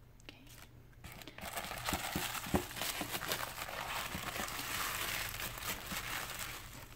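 Tissue paper crinkling and rustling as a hand pulls it out of a paper shopping bag. It starts about a second in and keeps going in a dense run of small crackles.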